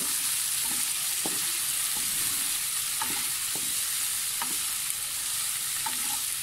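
Chopped onions sizzling in hot oil in a black pan on medium heat, with the spatula scraping against the pan in short, irregular strokes as they are stirred.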